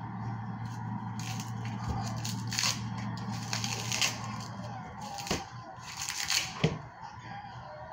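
Paper wrapper on a stick of butter being peeled back and torn open by hand, crinkling and tearing in irregular bursts, with a couple of sharp knocks near the end. A low steady hum underneath stops about five seconds in.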